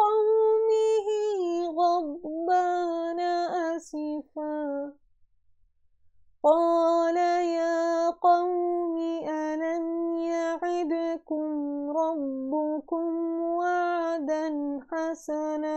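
A woman's voice reciting the Quran in a melodic chant, holding long notes that waver and slide. There is a pause of about a second and a half some five seconds in, before the recitation resumes.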